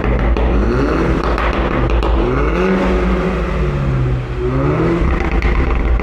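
Mini Cooper JCW's 2-litre inline-four and its loud exhaust being revved about three times, each rev climbing in pitch and falling back to a low rumble; the middle rev is the longest.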